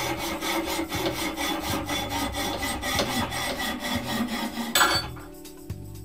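Hand file worked back and forth in quick, even strokes on an aluminium gear-shifter casting clamped in a bench vise, dressing the metal; the strokes stop about five seconds in.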